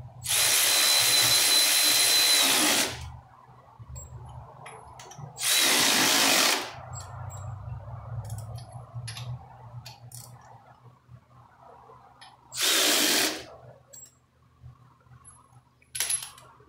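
A handheld power wrench runs in four separate bursts as it drives bolts on a tractor's track mounting: a long first run of about two and a half seconds, two shorter runs of about a second each, and a brief blip near the end. Faint tool clicks and handling noise come between the runs.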